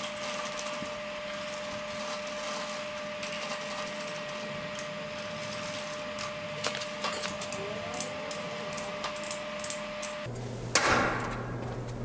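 Hand screwdriver turning and seating the bolts that hold the electric motor back onto the vacuum pump: many light metal clicks and scrapes over a steady hum. A single loud knock near the end.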